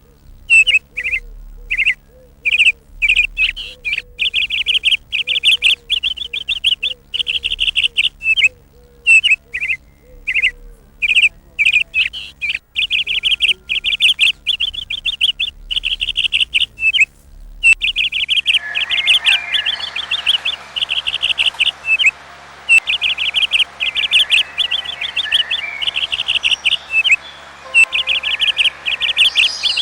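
Small songbird chirping in rapid, high-pitched twittering bursts, repeated with short pauses. Partway through, a steady background hiss comes in under the chirping.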